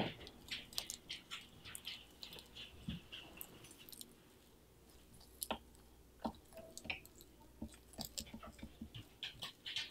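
Sulcata tortoise biting and chewing kale leaves: irregular crisp crunches and small wet clicks, with a brief lull about four seconds in.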